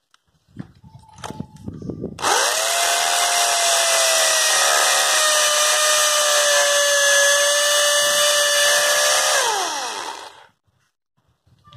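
Black & Decker hammer drill, switched to hammer mode, boring into a plastered concrete pillar: a steady loud whine and grind that starts about two seconds in after a few handling knocks, then winds down in pitch near the end as the trigger is released. It goes through the concrete easily.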